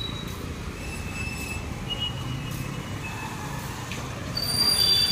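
Busy street traffic: motorbikes and other vehicles running with a steady low noise, with brief high-pitched tones now and then, the loudest about four and a half seconds in.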